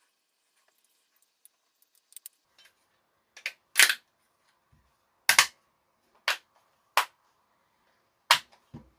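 Sharp plastic clicks and knocks, about seven of them at uneven intervals from about three seconds in, as a repaired LG TV remote is handled and tried out.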